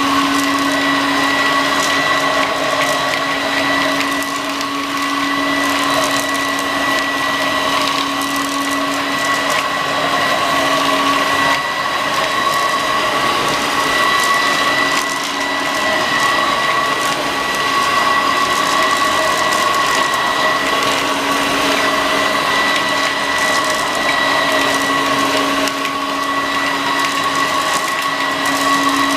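Homemade bagless cyclonic upright vacuum cleaner, built on a Vorwerk, running steadily while it vacuums a shag rug. Its motor gives a loud, even whine over the rush of air.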